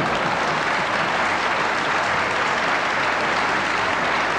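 A large audience applauding, with dense, steady clapping.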